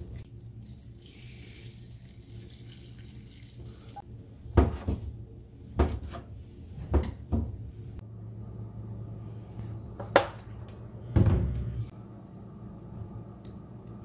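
Hot water pouring over sheets of fish cake in an aluminium pot. Then a knife cuts rolled fish cake on a plastic cutting board: about six sharp knocks, a second or so apart. A low steady hum runs underneath.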